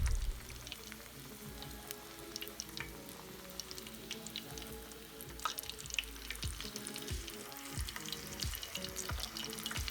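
Breaded chicken rolls shallow-frying in oil in a pan: a steady sizzle scattered with small crackles and pops. Soft background music plays underneath.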